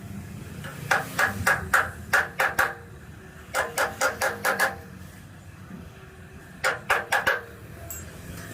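Hammer blows on the sheet-steel body of a classic Vespa scooter during rust repair, in three quick runs of about seven, six and four strikes, roughly four to five a second.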